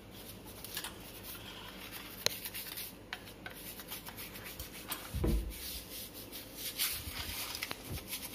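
Toothbrush bristles scrubbing the fine wire mesh of a stainless steel tea strainer, a run of quick scratchy rubbing strokes as tea stains are cleaned off. A single dull low thump about five seconds in.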